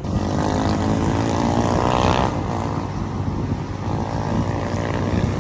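Motorcycle engine running close by, its pitch rising and falling a little as the throttle changes.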